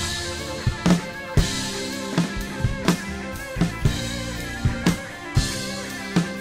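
Acoustic drum kit played in a slow blues-rock groove of kick, snare and crashing cymbals, along with a band recording with guitar. Cymbal crashes near the start, about a second and a half in, and again near the end.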